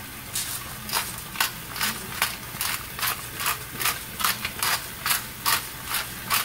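Olde Thompson black pepper grinder being twisted, grinding peppercorns in short, even strokes, about two to three a second.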